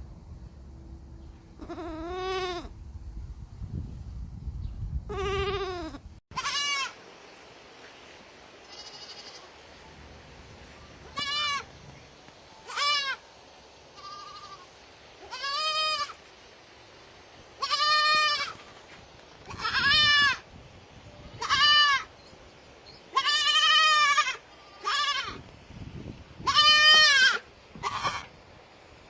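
Baby goats bleating: a series of separate high, wavering cries, about a dozen in all, coming every one to two seconds, with a few in quick pairs.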